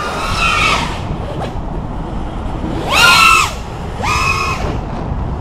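FPV quadcopter's brushless motors whining in three short throttle bursts, near the start, about three seconds in and about four seconds in, the pitch gliding up and down with each punch. A steady low rushing noise runs between the bursts.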